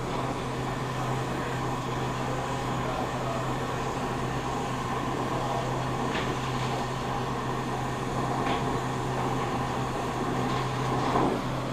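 Brazing torch flame hissing steadily as a liquid line filter drier is brazed into a refrigeration line, over a constant low hum.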